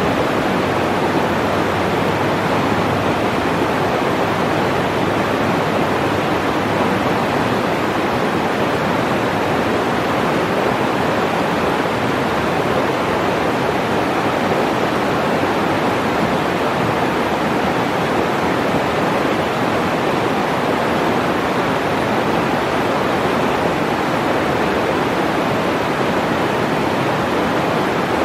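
A shallow, rocky mountain river rushing over boulders and cobbles in whitewater riffles: a steady, even rush of water.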